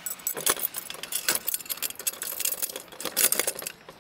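Steel U-bolt, collar and nut hardware clinking and rattling against the metal guide of an Alaskan chainsaw mill as it is fitted by hand: a quick, irregular run of light metallic clicks that stops just before the end.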